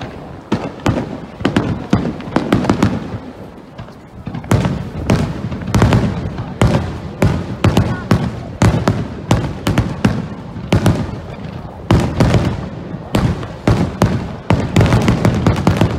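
Fireworks display: aerial shells bursting in quick succession, a dense run of bangs and crackles several a second, easing off briefly about three to four seconds in and then building again.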